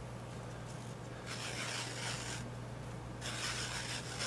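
Leather being sliced into lace as it is drawn past a knife blade set in a grooved willow stick: two stretches of dry rasping as the lace is pulled through under steady pressure, over a steady low hum.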